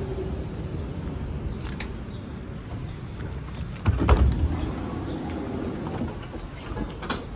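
A tram's steady low rumble, with a sharp knock about four seconds in and a click near the end.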